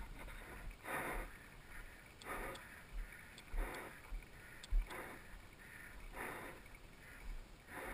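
Downhill mountain bike rolling down a dirt jump trail, heard from a helmet camera: whooshing swells that come back about once a second as the rider rolls over the trail's humps, and a sharp knock about five seconds in.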